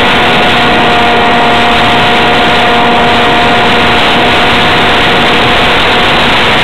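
Loud wind rush over a camera mounted on a Parkzone F-27B Stryker RC flying wing in flight, with the steady whine of the plane's brushless electric motor and propeller running under it.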